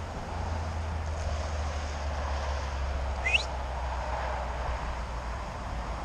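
Wind rumbling on the microphone over a steady rustle of dry grass, with one short rising whistle about three seconds in.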